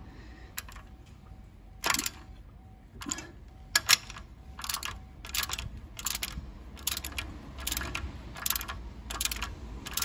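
Socket ratchet clicking in short strokes, one or two a second, as a knuckle-arm stud bolt is screwed into the steering knuckle. The stud is going in against resistance that the mechanic finds suspicious.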